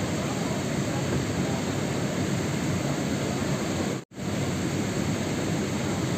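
Steady rain noise, a dense even hiss with no separate drops standing out. About four seconds in it cuts out for a split second, then resumes as before.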